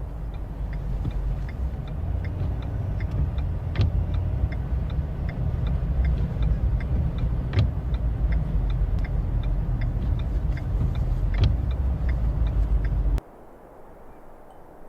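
Car driving: a steady low rumble of road and engine, with a light regular ticking about three times a second and a sharper click roughly every four seconds. The sound cuts off suddenly near the end.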